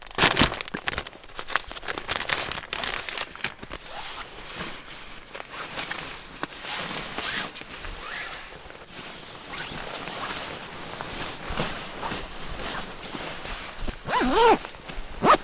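Close rustling and crinkling of plastic wrappers and nylon fabric, with many small crackles and zipper-like rasps, as hot packs are handled.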